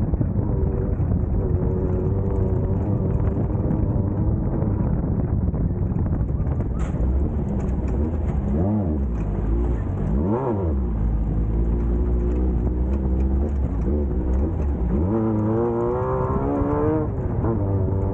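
Class 1600 off-road race car's air-cooled VW 1600 engine running hard under load. The revs dip and pick back up twice around the middle, then climb again near the end.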